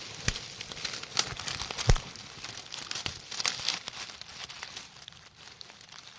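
Dry leaf litter and twigs crackling and rustling with a few sharp snaps, the loudest about two seconds in, as someone moves through and searches the parched forest floor.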